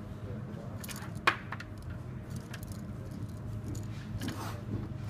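Light metallic clicks and rattles of wired three-way switches and their cable being handled and laid in place on a board, the sharpest click about a second in, over a low steady hum.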